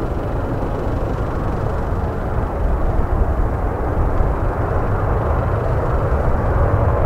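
Jet airliner engine noise, a steady rush that grows slowly louder as the aircraft nears, with wind rumbling on the microphone.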